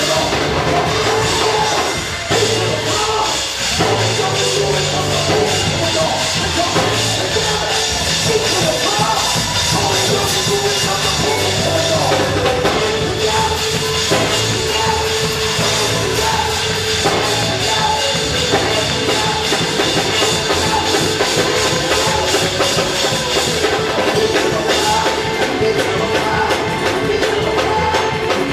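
Loud live church music with drums playing a steady beat and voices singing along.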